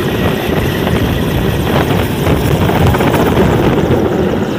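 Mi-17 military transport helicopter flying low overhead, with a loud, steady rush of rotor and turbine noise.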